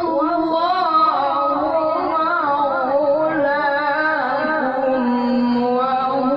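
A qari's solo voice chanting Quran recitation in long, ornamented held notes, the pitch wavering and gliding within each phrase.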